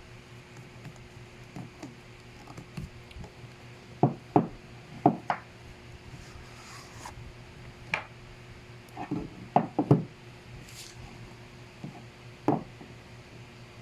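Scattered light knocks and clicks of a watch box and its packaging being handled and opened, some in quick pairs, with a cluster about nine to ten seconds in. A steady fan hum runs underneath.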